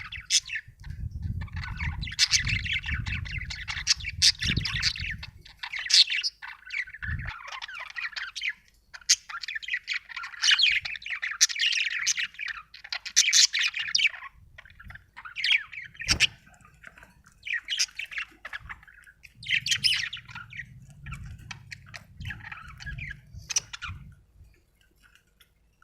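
Budgerigar chirping and chattering: a rapid, irregular stream of short, sharp calls and squawks with brief pauses, stopping about a second before the end.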